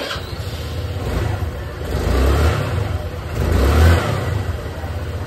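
150 cc motorcycle engine running, its throttle blipped twice, about two and four seconds in.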